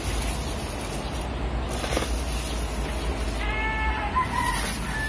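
A single animal call, one held note of about half a second with several even overtones, about three and a half seconds in, over a steady low hum.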